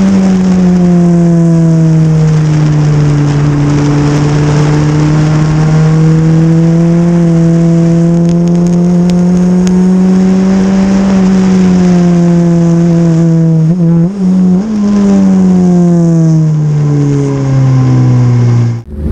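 Super FJ race car engine running hard at high revs, its pitch drifting slowly up and down. It lifts off briefly with a jump in pitch about two-thirds of the way in, then falls in pitch as the car slows near the end.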